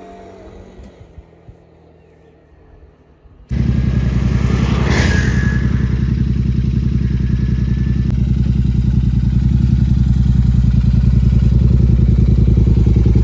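Royal Enfield Continental GT650's 648 cc parallel-twin engine running steadily and loudly, starting abruptly about three and a half seconds in after a few quiet seconds.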